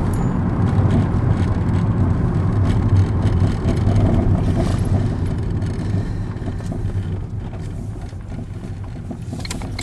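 Road noise inside a moving car: a steady low rumble of engine and tyres that grows quieter over the last few seconds.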